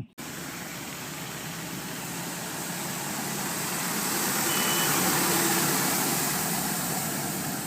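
Truck engine sound effect: a steady, noisy running sound that swells to its loudest about five seconds in and then eases off. It starts and stops abruptly, and a short high tone sounds briefly just past halfway.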